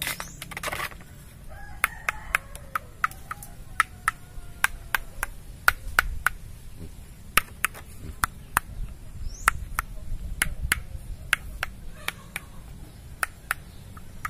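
Fingers flicking and tapping green kopyor coconuts hanging in a bunch on the palm: a long run of sharp clicks, about two a second, over a low rumble of handling. The flicks test by sound whether each nut is kopyor: a dull, bassy note means kopyor flesh, a ringing one means a normal coconut.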